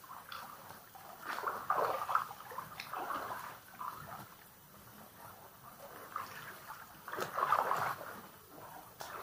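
Small waves lapping and gurgling against the rock of a sea cave, coming in irregular surges, with two stronger ones about a second in and about seven seconds in.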